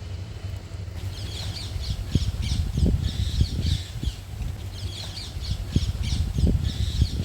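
Birds calling outdoors in quick, repeated chirps from about a second in, over a steady low rumble with a few short thumps.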